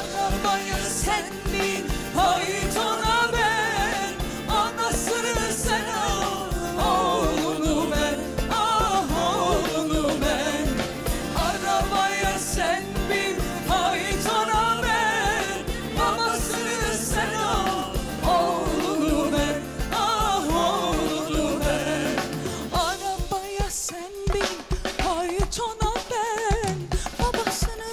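Live Turkish pop music: a woman singing a melody over a band with a steady beat. The low end thins out near the end.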